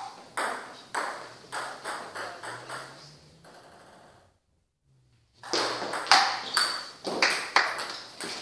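Table tennis ball struck back and forth in a rally: sharp pings off the bats and table, about two a second. They stop for about a second midway, then another quick run of hits follows.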